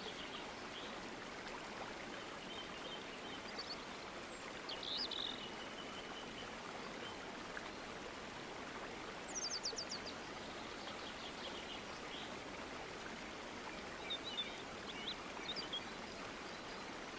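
Steady rushing-water ambience like a stream, with birds chirping now and then and a quick run of high notes about nine seconds in.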